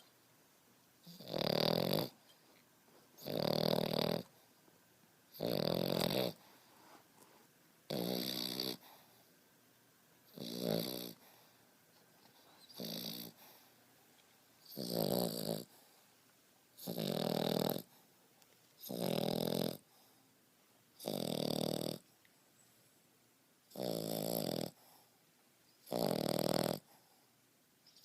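French Bulldog puppy snoring in a steady rhythm, one buzzy snore about every two seconds, each lasting under a second, with quiet breaths between. Snoring like this is typical of the breed's flat-faced, short airway.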